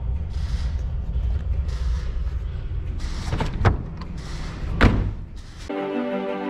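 Two thuds about a second apart, the second louder, as the open boot of a Volkswagen Passat is handled, over a steady low rumble. Music with held chords comes in near the end.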